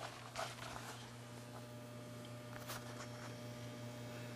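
Faint, steady electrical mains hum, with a few soft clicks and rustles.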